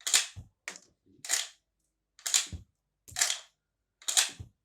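IOF .315 bolt-action rifle's bolt being worked repeatedly, six sharp metallic clacks about once a second as rounds are cycled from the magazine. The bolt runs smoothly, without sticking.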